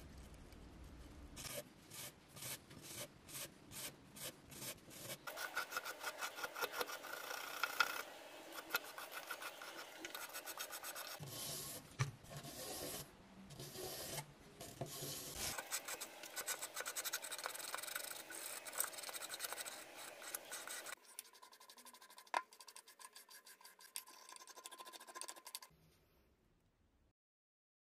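A handheld brush scrubbing rust off a rusty cast-iron coin bank. It starts with separate strokes at about two a second, then goes into fast continuous scrubbing that grows quieter and stops near the end.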